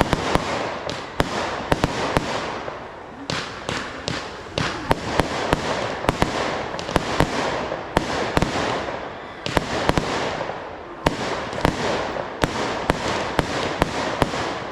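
Fireworks display: rapid sharp bangs of exploding shells over a dense crackling rush, swelling and easing off in waves every few seconds.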